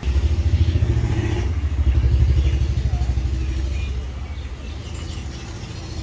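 An engine running nearby: a low throbbing rumble that comes in suddenly and eases off after about four seconds.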